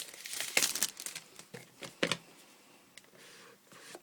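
Rustling and a few sharp clicks as a product box of wireless earbuds is opened by hand.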